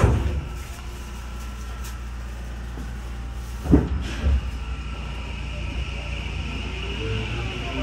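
Electric commuter train standing at a station, with a low steady hum. About four seconds in there is a single sharp thud and a smaller one after it, fitting the doors shutting. Near the end the traction motors start a faint whine that rises in pitch as the train begins to pull away.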